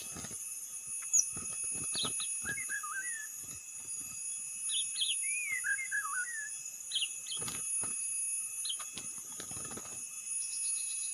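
White-rumped shama singing: short high whistled notes and two warbling phrases that glide up and down, about two and five seconds in, over a steady high-pitched background ringing.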